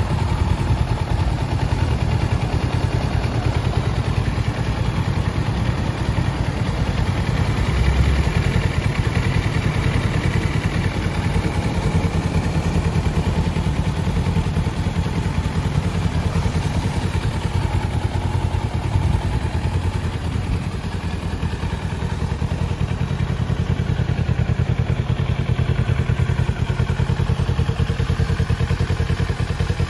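Kawasaki Z650's parallel-twin engine idling steadily, with one brief low thump about eight seconds in.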